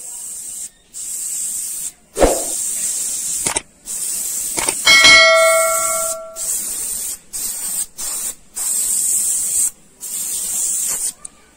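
Airbrush spraying paint, its compressed-air hiss starting and stopping in about eight short spurts as the trigger is pressed and released. A knock comes about two seconds in, and a bell-like metallic ring about five seconds in.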